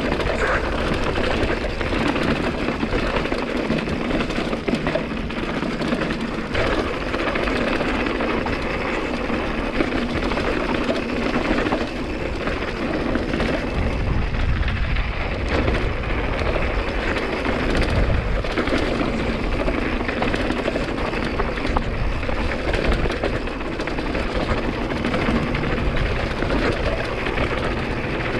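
Hardtail mountain bike riding over rough, rocky dirt road: steady wind buffeting on the microphone mixed with tyre noise and the rattle of the bike over the rocks.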